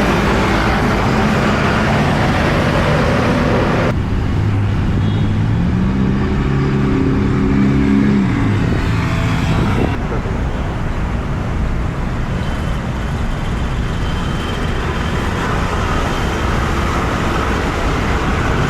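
Steady road-traffic noise; partway through, an engine's note rises as a vehicle accelerates, then fades out.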